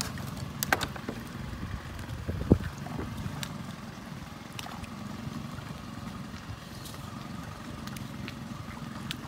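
Boat motor idling steadily, with a few sharp clicks and knocks in the first three seconds as gear is handled in the boat.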